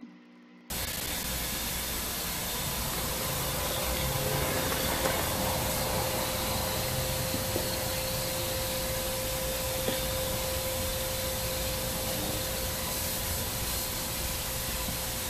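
Steady hiss of recording noise with a faint steady tone, cutting in abruptly under a second in.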